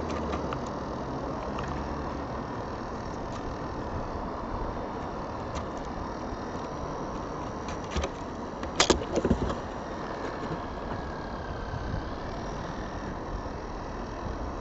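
Steady background noise, broken about eight seconds in by a short cluster of sharp knocks: a herring gull's beak striking the pencil tin it is attacking.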